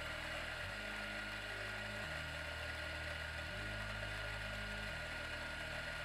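Bentwood Vertical 63 electric coffee grinder running, its 63 mm steel vertical burrs grinding espresso-fine coffee into a portafilter: a steady whir with a constant high whine.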